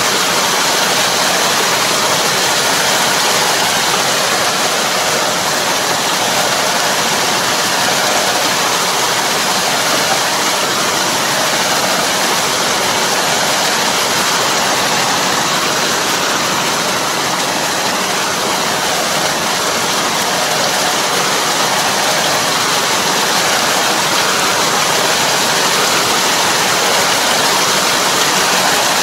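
A Kobashi TX313 drive harrow churning the muddy water of a flooded rice paddy while puddling, a steady rushing and sloshing, with the tractor's engine running underneath.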